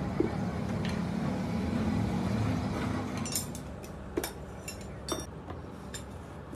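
A steady low rumble that drops away about halfway through, then a few sharp metallic clinks of hand tools on the steel parts of a hydraulic jack being taken apart.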